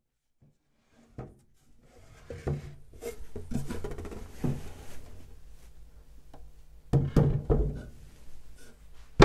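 A loose-fitting pine drawer being pulled out of its chest: wooden rubbing and light knocks as it slides free, then a few louder knocks about seven seconds in as it is set down on the chest's wooden top.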